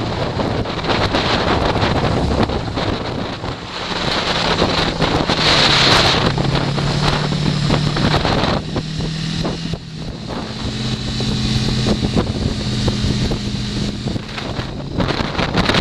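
Heavy wind buffeting the microphone in a snowstorm, with a snowmobile engine running underneath, its note shifting in pitch about halfway through.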